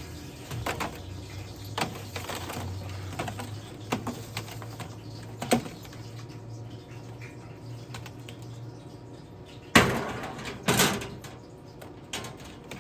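Chicken wings being handled out of a pellet smoker into a tray: scattered light clicks and knocks of tongs and metal, with two louder clatters about ten seconds in, over a faint low steady hum.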